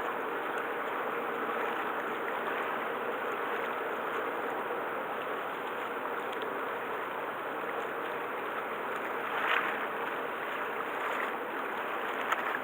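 Steady rush of water at the waterfront, with a brief louder swell about nine and a half seconds in.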